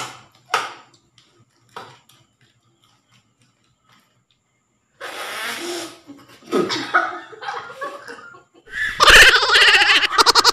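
A few short clicks, then a woman laughing loudly from about nine seconds in, in a long run of quick ha-ha-ha pulses.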